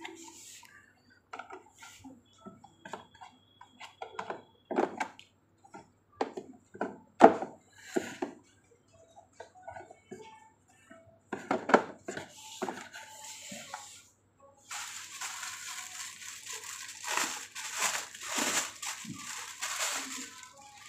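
Hard plastic parts of a baby high chair knocking and clicking as they are handled and fitted together, in a string of separate knocks, the loudest about seven seconds in. From about fifteen seconds in, a continuous rubbing, rustling noise takes over.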